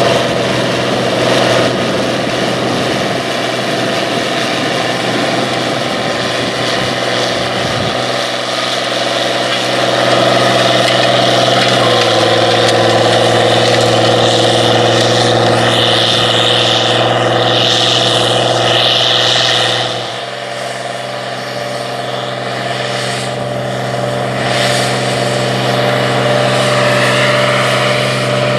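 Oliver 1950-T tractor's diesel engine working hard under load as it pulls a tandem disk harrow. It runs steadily, shifts pitch slightly about 8 and 12 seconds in, and drops in loudness about 20 seconds in as the tractor moves on.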